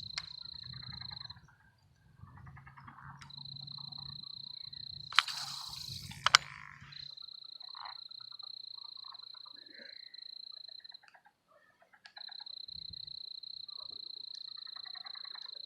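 Pond frogs calling in pulsed croaks, which sound like they're laughing, over a steady high-pitched insect trill that breaks off a few times. Two sharp knocks stand out about five and six seconds in.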